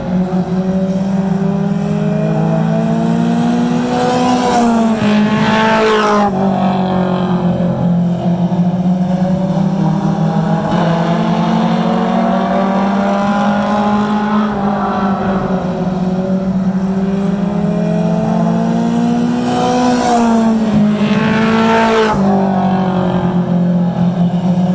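Race car engines running at speed around an oval track, their drone rising and falling as the cars circle. Cars pass close twice, about five seconds in and again about twenty-one seconds in, each pass swelling louder and dropping in pitch as it goes by.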